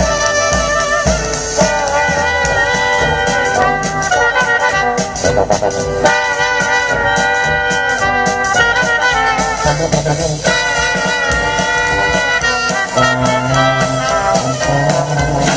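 Jazz band playing, a trumpet-led brass melody over tuba and drums.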